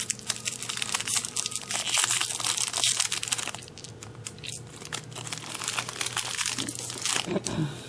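Plastic packaging crinkling and rustling as it is handled: a dense run of crackles that thins out around the middle and picks up again near the end.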